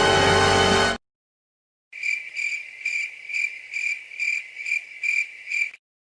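A music clip cuts off about a second in. After a short gap, a cricket chirps steadily, about two or three chirps a second, for roughly four seconds: the 'crickets' meme sound effect for an awkward silence.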